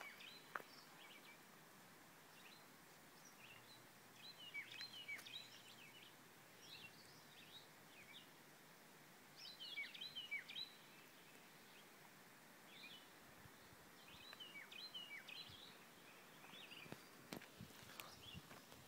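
Faint wild birdsong: short phrases of high chirps that come every few seconds over near-silent open air. A single sharp click sounds about half a second in.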